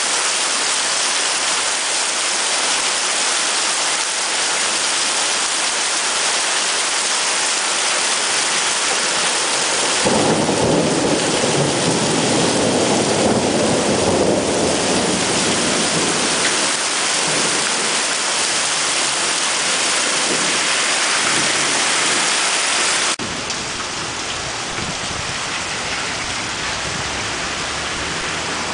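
Heavy thunderstorm: steady rain hiss, with a long rolling rumble of thunder from about ten seconds in lasting over ten seconds. About two-thirds of the way through, the sound cuts abruptly to quieter, thinner rain.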